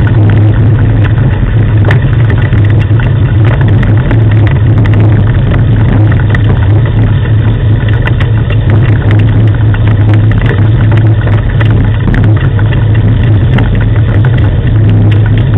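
Dog-team training rig rolling over a gravel track behind a running sled dog team: a steady low drone with constant rattling and scattered clicks.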